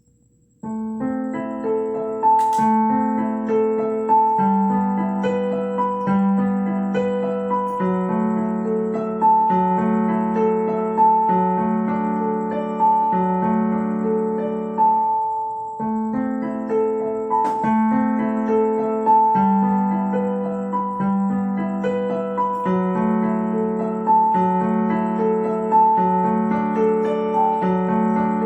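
Solo piano playing a calm piece of steady, rippling broken chords over bass notes that change about once a second; it begins under a second in and breaks off briefly about halfway through before carrying on.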